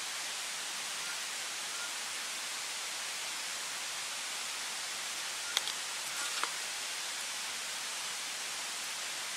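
Steady, even hiss of night-time forest ambience, with a few short sharp clicks about five and a half to six and a half seconds in.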